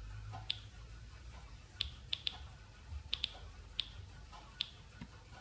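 Homemade Geiger counter clicking through its small speaker, about nine sharp clicks at irregular intervals, as its Geiger–Müller tube counts the suspected radioactive ionizing source from a nixie tube. The click rate is low and reads as only very slightly radioactive, barely above background.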